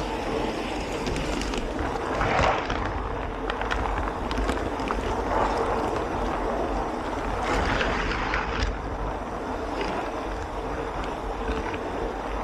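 Model train car rolling along LGB-scale garden-railway track: a continuous rumble with rapid clicks from the wheels on the rails and a faint steady hum, swelling louder twice, about two and eight seconds in.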